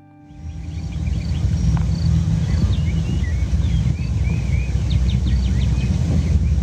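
Wind buffeting the microphone in a loud, uneven low rumble that swells up about half a second in, with small birds chirping and trilling over it.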